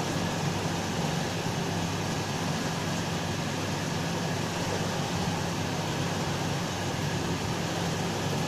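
Steady low hum with an even hiss and no distinct events.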